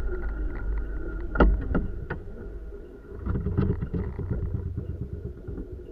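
A vehicle running, with a steady low rumble under a faint steady whine and a few sharp knocks, the loudest about a second and a half in.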